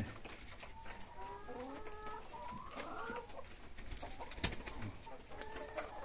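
Laying hens giving a string of short, quiet calls, with one sharp click about two-thirds of the way through.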